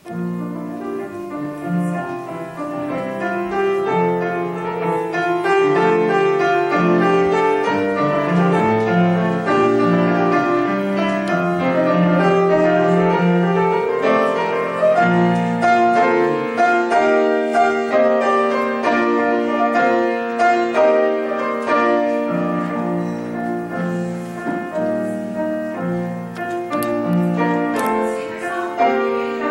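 Piano playing a piece of chords and melody notes, loud and continuous.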